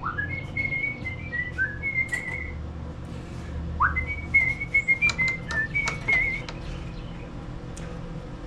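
A man whistling a short tune in two phrases, with sharp clicks and taps of hand tools in the middle.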